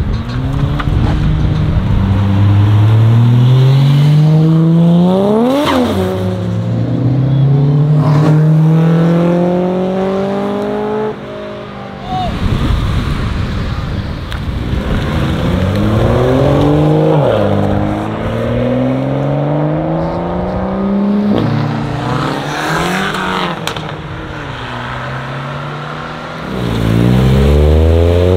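Cars accelerating hard away, one after another. Each engine note climbs steeply and drops back at every gear change.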